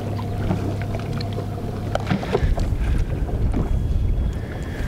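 Wind and water around a fishing boat, with a steady low hum from the bow's electric trolling motor that stops about two seconds in, followed by wind buffeting the microphone. Light clicks come from handling a baitcasting reel.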